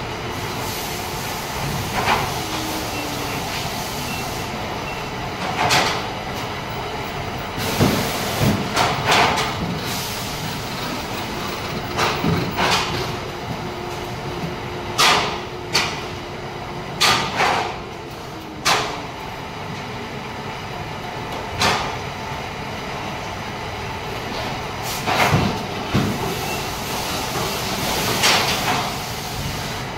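Steady machinery and air-handling hum of a factory floor, with irregular sharp knocks and clacks from parts and tools being handled, more than a dozen scattered through.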